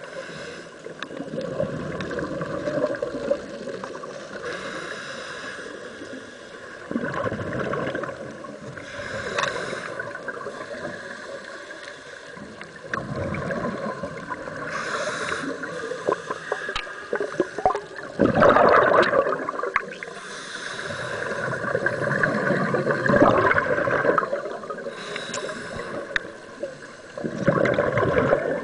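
Scuba diver breathing through a regulator, heard underwater: surges of exhaled bubbles gurgling every few seconds, with a few short clicks.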